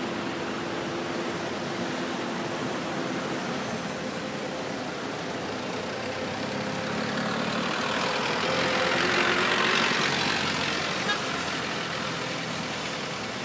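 Road traffic noise: a steady vehicle hum, with one vehicle passing and swelling louder about nine to ten seconds in before fading.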